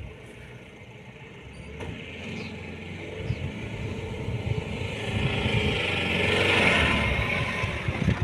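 A Mahindra diesel pickup engine working hard, growing steadily louder over several seconds to a peak near the end, with a rising hiss above the engine note.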